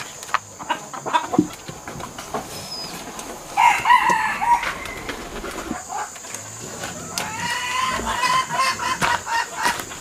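Chickens calling: a short call about halfway through, then a rooster crowing in one long call near the end.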